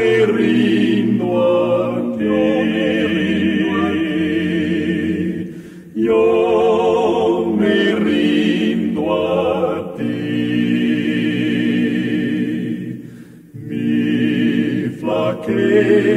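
Male vocal quartet, two tenors, baritone and bass, singing a slow Spanish hymn in close harmony: long held chords with vibrato, broken by short pauses for breath about six and thirteen seconds in.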